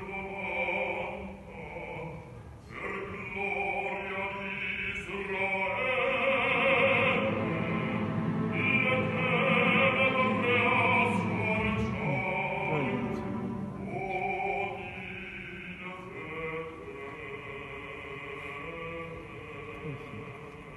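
Operatic bass voice singing an aria over orchestral accompaniment. The singing swells louder about halfway through and softens near the end.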